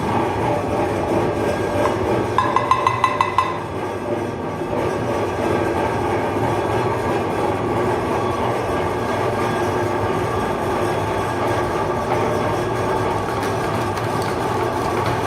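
Electric meat grinder running steadily with a continuous mechanical hum and rumble. About two seconds in, a brief run of rapid squeaky pulses lasts roughly a second.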